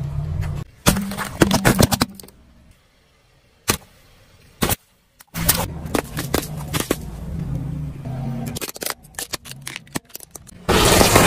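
Car tyre rolling over and crushing small objects on asphalt: a run of sharp cracks and pops over the low hum of the car, with a loud burst near the end.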